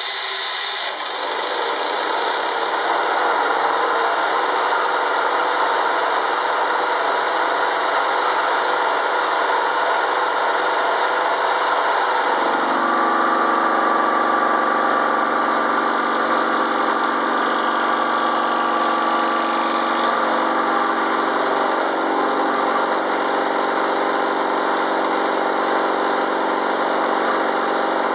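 Milling machine running, its carbide-insert chamfer cutter cutting the tomahawk's hook edge, over a steady hiss from the cool mist coolant. About twelve seconds in, a steady pitched ringing joins as the cut loads up: chatter and vibration from heavy tool forces on a cutter without offset flutes.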